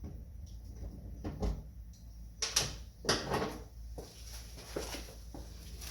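Scattered knocks and clunks from hand work on a pickup truck's door, with a longer scraping rustle from about two and a half to three and a half seconds in.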